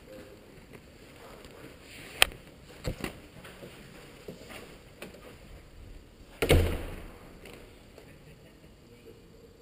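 A few sharp knocks over quiet room tone: one about two seconds in, two smaller ones about a second later, and a heavier thump about six and a half seconds in.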